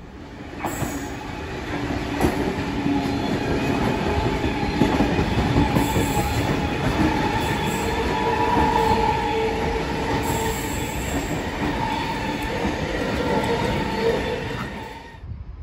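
Double-deck electric suburban train running along the platform: a loud rumble of wheels on rail with a steady high squealing whine over it. The sound cuts off suddenly near the end.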